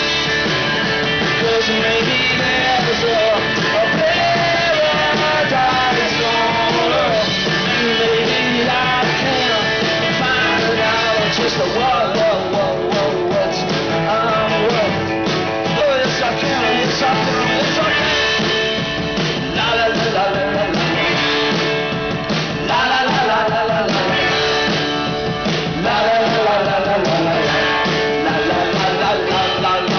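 Rock band playing live, with guitars and a wavering lead melody line over the full band.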